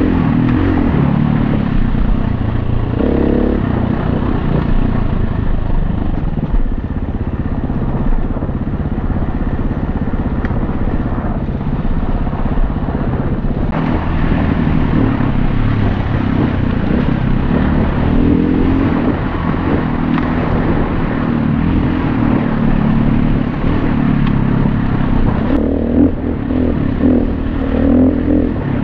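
Honda CRF250X dirt bike's single-cylinder four-stroke engine running under changing throttle on a trail, its pitch rising and falling as it revs up and eases off.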